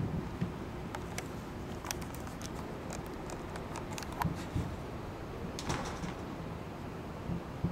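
Distant fireworks going off: a handful of short, muffled booms and sharp crackles scattered over a steady background rumble.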